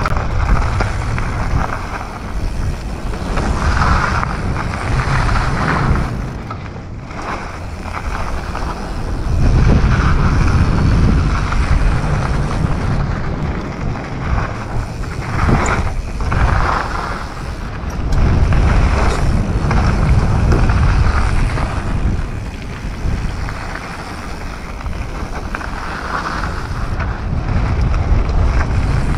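Wind buffeting a GoPro's microphone over the rolling tyre noise of a Commencal Supreme DH29 downhill mountain bike ridden fast down a trail. The rush swells and fades every few seconds.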